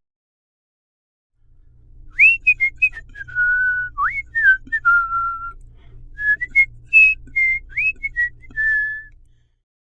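A person whistling a short tune through the lips, starting about two seconds in: a run of held notes joined by quick upward slides, over a faint low hum.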